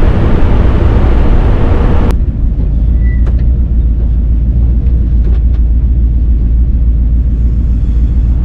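1965 Ford Mustang fastback's 302 V8 with side-exit exhaust, heard from inside the cabin, running loud under hard acceleration; about two seconds in the throttle is lifted and the sound drops suddenly to a steady low exhaust rumble as the car rolls on.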